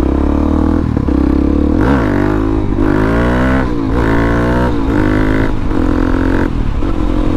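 Motorcycle engine, heard from the rider's microphone with wind rushing over it. The engine runs steadily, then about two seconds in it accelerates hard through several quick gear changes, its pitch climbing and dropping back at each shift, and settles to a steady drone near the end.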